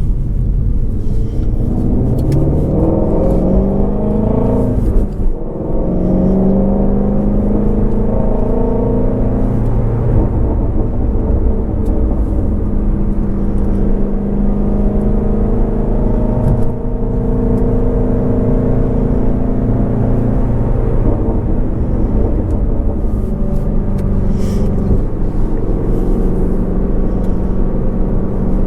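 2019 Shelby GT350R's 5.2-litre flat-plane-crank V8 accelerating, its revs climbing for about three seconds. The revs drop briefly with an upshift about five seconds in, then the engine holds steady revs at cruise for the rest.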